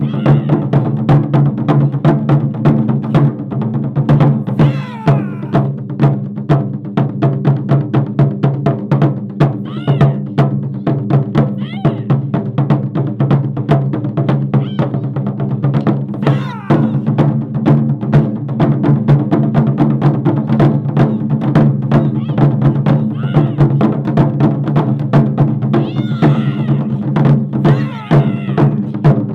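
Japanese taiko drum ensemble playing, with rapid strikes in a continuous driving rhythm over the deep ring of the large drums.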